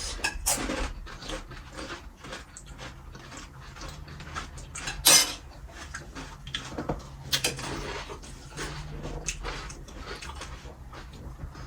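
Plates and spoons clinking and knocking in irregular clicks, mixed with the eating sounds of pani puri being eaten fast. There is one louder clatter about five seconds in.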